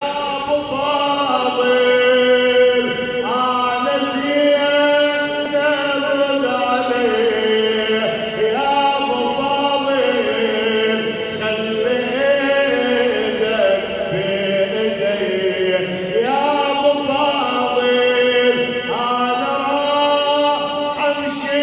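A man chanting a Shia mourning lament in Arabic into a microphone, unaccompanied, in long held notes that slide from pitch to pitch with only short breaks.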